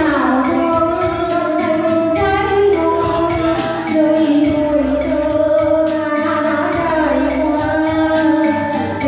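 Music: a woman singing long held notes over instrumental accompaniment.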